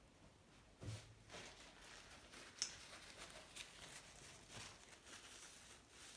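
Faint handling sounds from work on a bicycle bottom bracket: a soft knock about a second in, then a sharp click and several lighter clicks and rustles.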